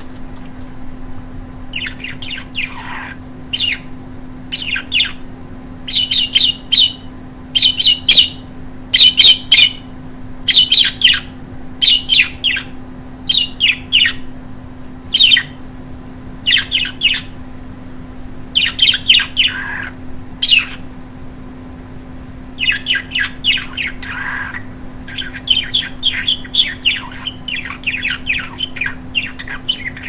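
Pet budgerigar chattering: rapid bursts of high warbles, chirps and squawks, the speech-like chatter of a talking budgie, with a short pause about two-thirds of the way through.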